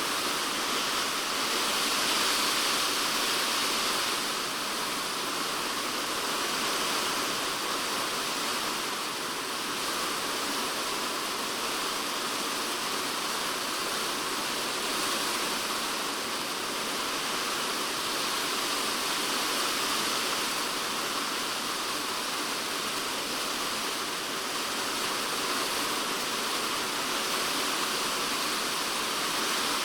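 Typhoon rain drumming steadily on a polycarbonate shed roof, heard from inside the shed: a dense, even patter that swells a little a couple of seconds in.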